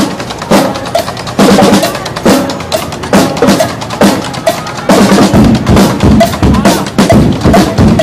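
A school marching drumline plays a loud, driving cadence on snare drums, multi-tom tenor drums and a bass drum. The beat gets denser, with heavy bass-drum hits, from about five seconds in.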